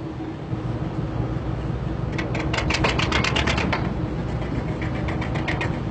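Rescue-boat davit winch paying out the falls as the boat is lowered, a rapid run of even clicks about ten a second, then a shorter run near the end, over a steady low rumble.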